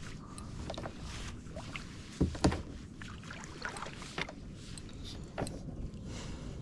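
Water and wind noise around a fishing kayak, with scattered small knocks against the hull, two louder knocks a little over two seconds in.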